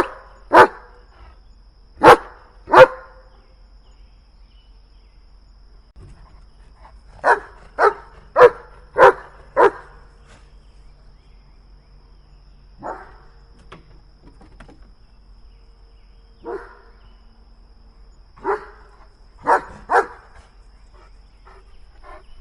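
German Shepherd barking in short, sharp barks that come in bursts with pauses between: two quick pairs at the start, a run of five about seven seconds in, two lone barks, then three more near the end.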